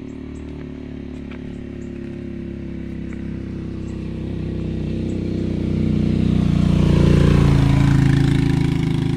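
Motorcycle engine approaching along the road and passing close by. It grows steadily louder, is loudest about seven seconds in as it goes past, then begins to fade.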